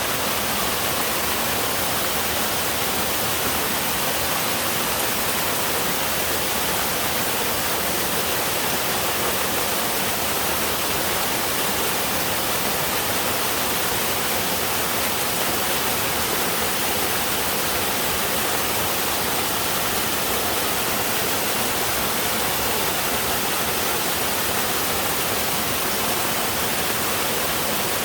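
Mountain-stream waterfall rushing steadily: an even, unbroken hiss of falling water.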